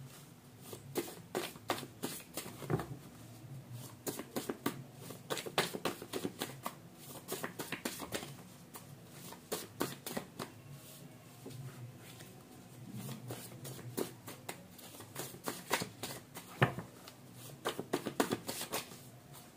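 Tarot cards being shuffled by hand: quick runs of crisp card clicks and flicks, easing off for a few seconds past the middle before picking up again.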